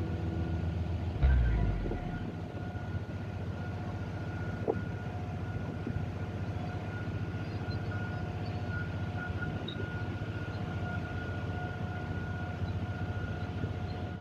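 Steady running drone of the car ferry Sound of Seil under way: a constant hum with a couple of held tones over a rushing background. There is a single thump about a second in.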